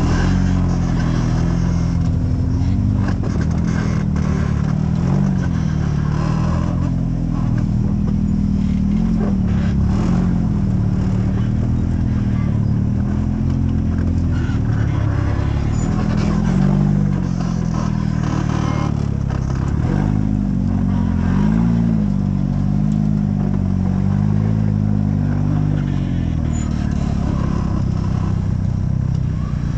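Off-road vehicle engine running close by, its revs rising and falling again and again.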